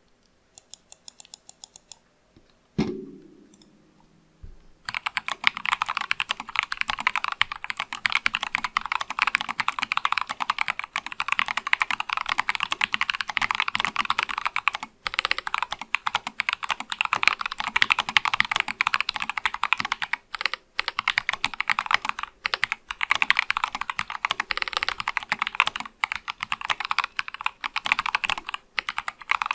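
Mechanical keyboard typing test on an acrylic Sesame keyboard fitted with C3 Kiwi tactile switches. After a low thump about three seconds in, steady fast typing starts about two seconds later and runs on as a dense stream of keystroke clacks.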